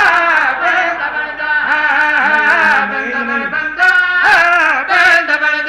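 A man chanting verse in long, wavering held notes, amplified through microphones.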